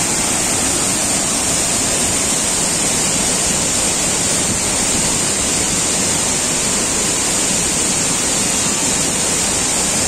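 Steady rush of water: a fast mountain river tumbling over rocks below a waterfall.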